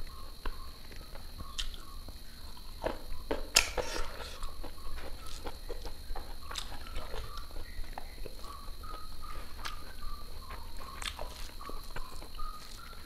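Close-miked eating sounds: chewing and mouth clicks, with fingers mixing rice on a plate.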